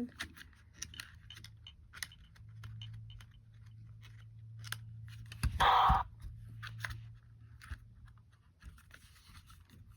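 Clicking and handling of plastic electronic toy drumsticks, their buttons being pressed, with a low steady hum for several seconds. One short loud burst of sound comes a little past the middle.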